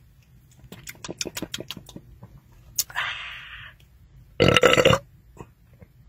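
A man gulping carbonated soda in a quick run of swallows, then a breathy exhale, then about four and a half seconds in a short, loud belch.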